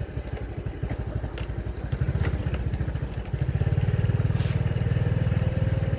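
Small motorcycle engine running under way with a steady low pulsing, growing louder about three seconds in as its pitch rises slightly.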